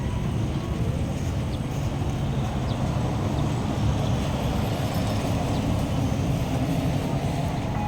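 Steady low rumble of vehicle noise, even and unbroken.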